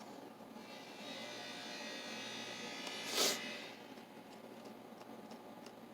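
Small electric screwdriver whirring steadily for about two and a half seconds as it backs a screw out of a steel mortise lock case, followed by a short rattle about three seconds in.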